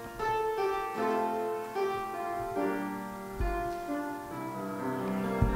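Piano playing a slow hymn introduction, a series of held chords that change every half second to a second. Two brief low thumps come in the middle and near the end.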